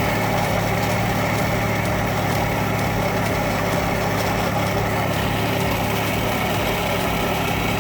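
The 4.2-litre inline-six of a 2003 GMC Envoy idling steadily, running with the battery cable pulled to test whether the alternator alone can keep it going.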